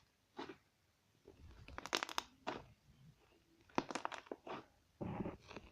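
Homemade glitter slime being squeezed and worked by hand, giving several short crackling, crunchy pops as air pockets in it are pressed out.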